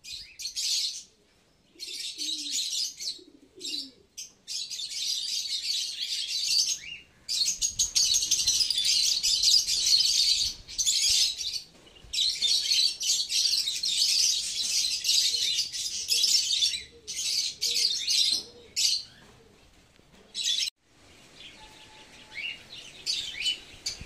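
Dense, high-pitched chattering of a mixed aviary flock that includes free-flying African lovebirds. It is broken off abruptly a few times and thins to scattered chirps near the end.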